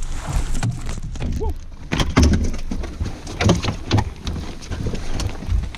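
Scattered knocks and thumps on a bass boat's deck, over a low rumble of wind on the microphone, while an angler fights a fish on rod and reel.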